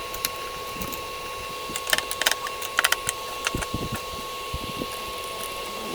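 Scattered sharp clicks and light knocks of parts and small tools being handled while an air fryer is worked on, over a steady high-pitched hum. The clicks bunch together about two and three seconds in.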